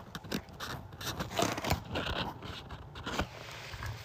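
Handling noise from a phone held against clothing: rustling and scraping of a jacket rubbing the microphone, with scattered small clicks and knocks.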